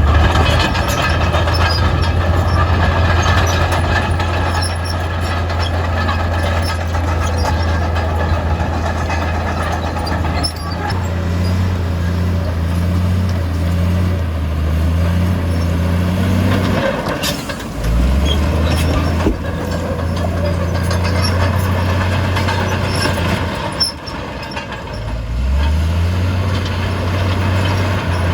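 Heavy earthmoving machinery running: a diesel engine working under load, with metallic squeaking and clanking. The engine note drops and picks up again twice in the second half.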